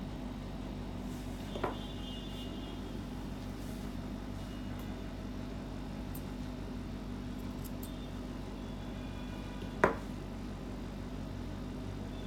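Steady low hum with two sharp metallic clicks, a small one early and a louder one about ten seconds in, from steel grooming shears and comb being handled on a grooming table.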